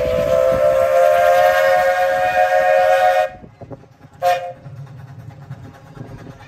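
Steam locomotive whistle (Strasburg Rail Road No. 89, a 1910 2-6-0) blowing a chord: one long blast that rises slightly as it opens and cuts off sharply about three seconds in, then one short toot, over a low rumble.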